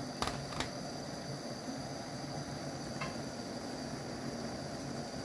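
Tomato-and-chickpea curry simmering in a frying pan over a gas burner: a steady bubbling hiss. Two sharp clicks come close together near the start, and a fainter one about three seconds in.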